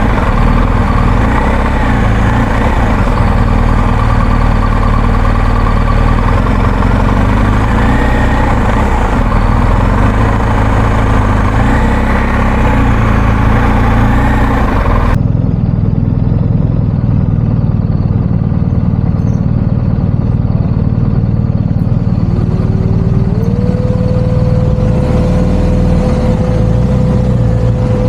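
Motorcycle engine running with a heavy low rumble on the bike-mounted microphone. About halfway the sound changes abruptly to a duller rumble, and later a steady whine steps up in pitch and holds.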